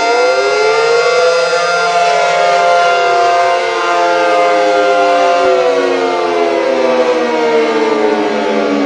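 Synthesized Cold War civil defense siren sound modelled on Federal sirens with 9/12-port rotors: a loud wail of several pitches sounding together, climbing in the first second or so, holding, then slowly falling in pitch from about halfway through.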